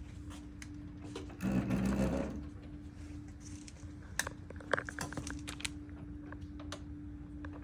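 Plastic ventilator circuit tubing and its packaging being handled: a burst of rustling about a second and a half in, then a few light plastic clicks and taps, over a steady low hum.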